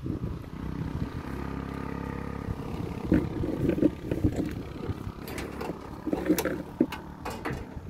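A steady low engine hum that stops about two and a half seconds in, then the clatter of metal tongs and utensils on a street-food stall counter, with sharp clicks as a portable gas stove is lit.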